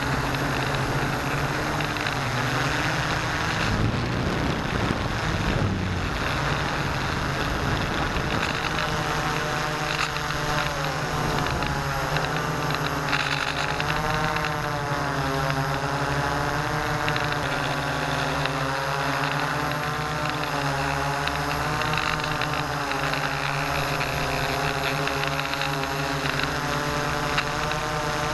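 Hexacopter's six electric motors and propellers, heard close up through the camera mounted on the craft: a steady, loud buzzing drone. From about nine seconds in, several tones waver up and down as the motor speeds shift.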